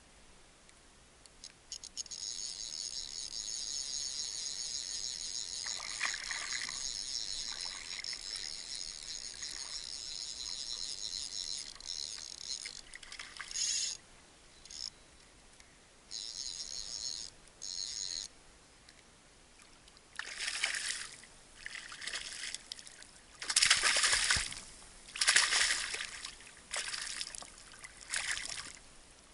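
Fly reel's clicker ratcheting in a steady high buzz for about ten seconds, then in short stop-start bursts. In the last several seconds, loud splashes in shallow water from a hooked bonefish being brought to hand.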